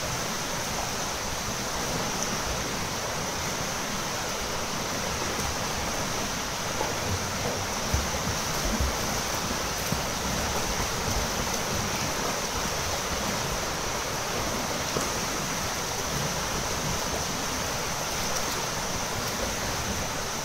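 Steady splashing and churning water from many swimmers doing freestyle laps in an indoor pool, with a few faint knocks.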